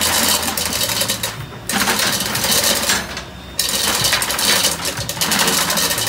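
Loud, rapid mechanical clatter of engine-room machinery over a steady low hum, the clatter dropping away briefly about a second and a half in and again about three seconds in.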